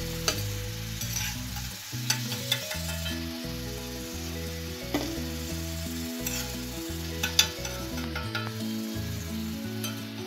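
Potato smileys deep-frying in hot oil in a metal kadai, sizzling steadily, with a perforated metal skimmer clicking against the pan several times as the fried pieces are lifted out. Soft background music with changing notes runs underneath.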